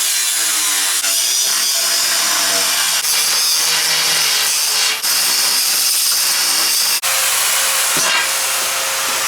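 A power tool cutting through scrap steel tubing, its motor pitch sagging and recovering under load over a steady hiss, in short stretches that break off abruptly about every two seconds.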